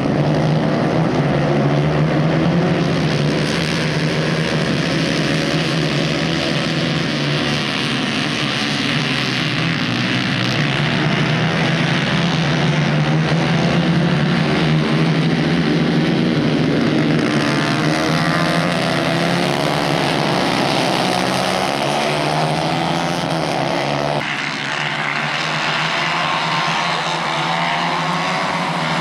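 A pack of racing karts' engines running hard together, their many overlapping pitches rising and falling as the karts accelerate and slow through the corners.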